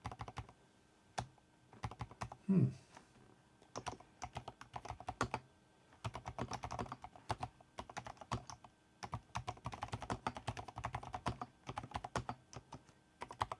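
Typing on a Keychron V6 Max full-size wireless mechanical keyboard: fast runs of key clacks in bursts, with a short pause about halfway through.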